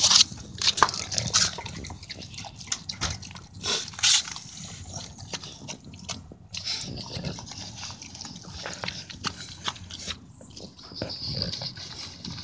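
Dog eating soft food off a paper plate: irregular wet chewing and smacking sounds, with a few louder knocks near the start.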